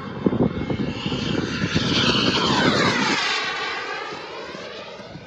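Radio-controlled model airplane flying past overhead: its engine sound builds to a peak about two to three seconds in, then drops in pitch and fades as it flies away.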